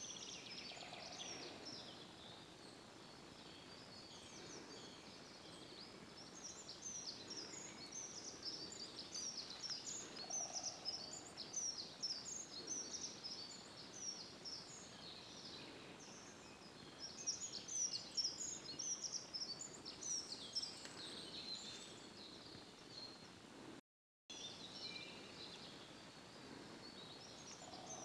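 Songbirds singing in woodland: many short, high notes from several birds overlapping, busiest in the middle. The sound cuts out completely for a moment about four seconds before the end.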